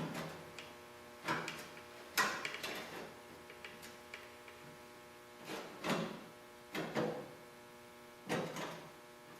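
Short scraping and clinking handling sounds, about five in all, as a thin sheet-metal patch panel is worked into place behind a truck bedside and pulled on with small channel-lock pliers. A steady electrical hum runs underneath.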